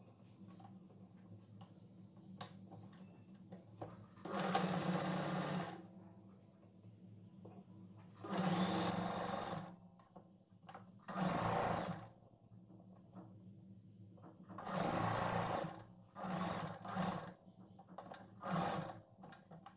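A sewing machine running in several short bursts of about one to one and a half seconds each, with pauses between them. It is stitching the blouse's main cloth and lining together along the seam. Faint clicks of handling come in the gaps.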